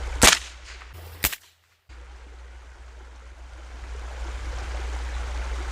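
.22 LR shots from an AR-15 fitted with a CMMG .22 conversion bolt carrier group: two sharp cracks about a second apart, and a third near the end. A steady rushing noise runs underneath.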